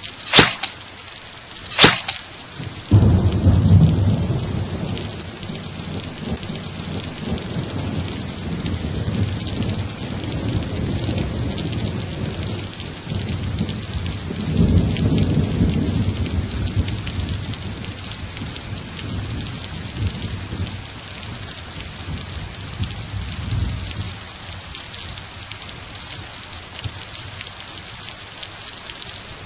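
Thunderstorm: steady rain with thunder, two sharp cracks in the first two seconds, then low rolling rumbles that swell again about halfway through.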